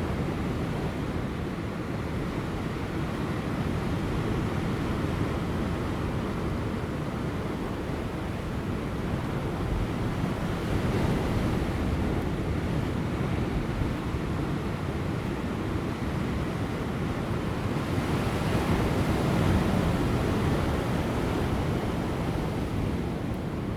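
Large ocean waves breaking on offshore rocks: a continuous rushing surf that swells as waves crash, once about eleven seconds in and again a few seconds before the end, with light wind.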